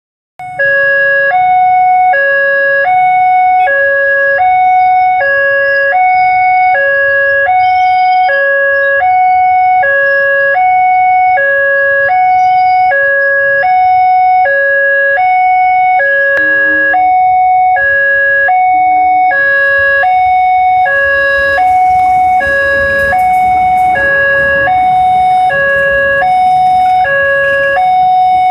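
Railway level-crossing warning alarm ringing loud and steady: an electronic two-tone chime alternating a lower and a higher note, each about half a second long. In the last third, the rising rumble and rail noise of an approaching passenger train builds up beneath it.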